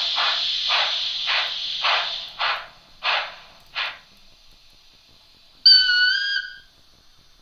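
Sound decoder of a Märklin HO EST Class 13 steam locomotive model playing steam chuffs through its small speaker. The beats slow down and die away over the first four seconds, leaving a faint hiss. About two-thirds of the way through comes a single whistle blast of about a second, a chord of several tones.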